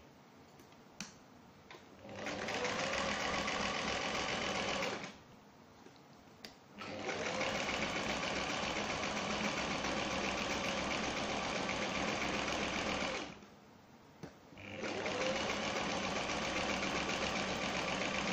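Domestic electric sewing machine running in three bursts, stitching a zigzag seam. Each burst starts with a short rise as the motor spins up. It starts about two seconds in and pauses twice, with small clicks in the pauses.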